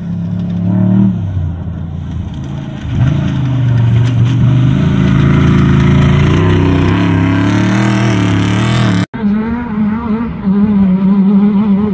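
Off-road desert race truck engines at high revs as the trucks race past, the pitch shifting with the throttle and the sound growing louder about three seconds in. After a sudden break about nine seconds in, another truck's engine comes in with a wavering pitch as it revs.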